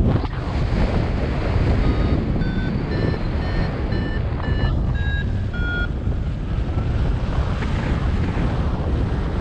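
Wind rushing over the microphone in flight, with a paraglider's variometer sounding its climb tone from about two seconds in: short beeps about two a second, rising in pitch and then falling away, the sign of the glider climbing in lift that strengthens and then weakens.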